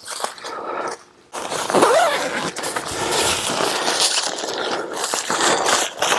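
Polyester tent fabric rustling and crinkling as the rain fly is handled, a dense rustle starting about a second in.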